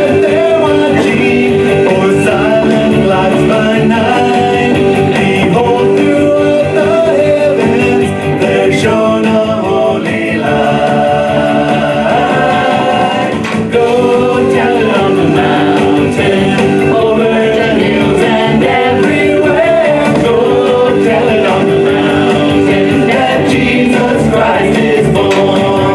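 Music: a song with singing voices over instruments.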